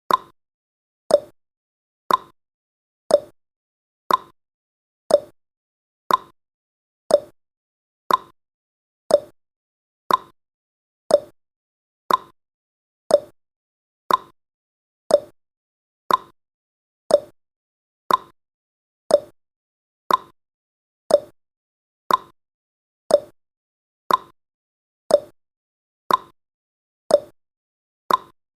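Countdown timer's clock-ticking sound effect: short, sharp ticks exactly once a second, alternating a slightly higher and a slightly lower tick like a clock's tick-tock.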